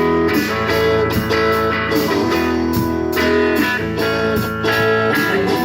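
A band playing an instrumental stretch of a rock song between sung lines: strummed guitar chords over a steady beat.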